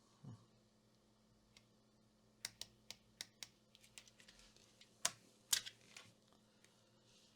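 An irregular run of light, sharp clicks and taps on a workbench, with two louder clicks about five seconds in and a soft low thump right at the start.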